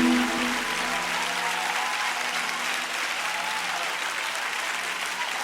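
Crowd applauding as the final held chord of a gospel song dies away in the first second.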